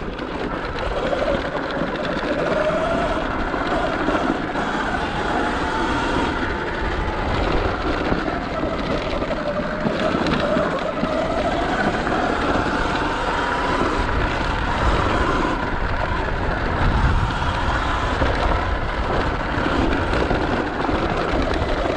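Sur Ron X electric dirt bike riding down a rocky trail: the motor whine rises and falls in pitch with speed over a steady rumble of tyres on loose rock.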